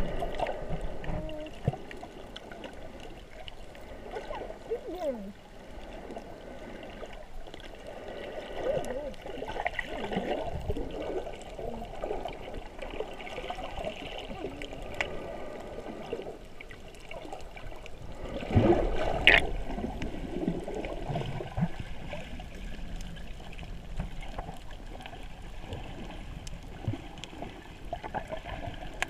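Underwater gurgling and bubbling heard through a submerged camera, with a louder surge of water a little past the middle.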